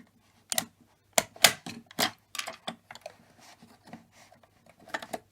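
Irregular sharp clicks and taps of a key being worked in the key holes of a homemade fire alarm box and its lid being handled as it is opened. The loudest click comes a little over a second in.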